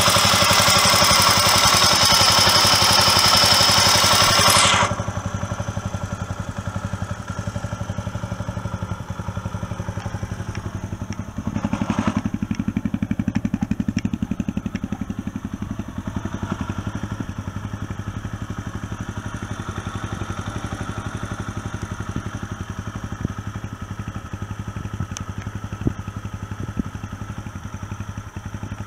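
Honda XL250S single-cylinder four-stroke engine, freshly rebuilt, running steadily at idle, with a brief rise in engine sound about twelve seconds in. A loud hiss lies over the first five seconds and cuts off suddenly.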